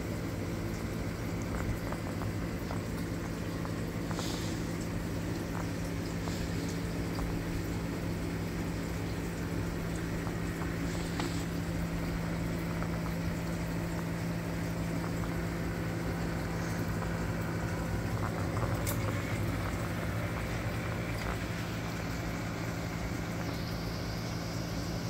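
Reef aquarium equipment running: a steady low hum of pumps with water flowing and trickling, and a few faint brief ticks.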